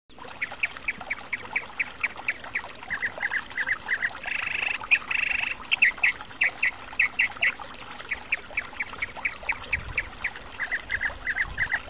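Bird calling again and again in short, sharp notes, about three a second, with a harsh buzzing call about four to five seconds in.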